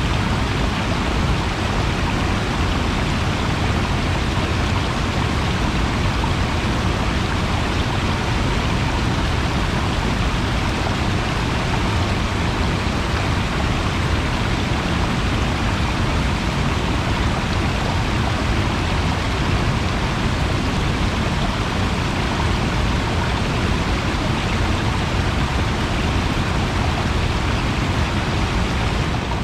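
Steady rushing water, an even unbroken noise.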